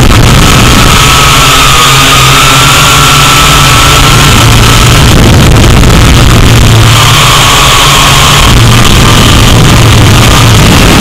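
Drone's electric motors and propellers whining steadily through its onboard camera's microphone, the pitch wavering slightly as it banks, with a hissing rush of air. Loud throughout.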